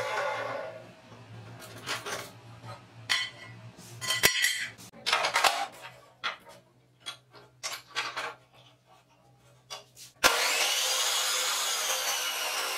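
A 14-inch abrasive cut-off saw (LG 355) running down, its whine falling in pitch and fading. Then comes a series of scattered clicks and knocks as a square steel tube is set and clamped in its vise. About ten seconds in, a loud, steady grinding starts suddenly as the abrasive wheel cuts through the steel tube.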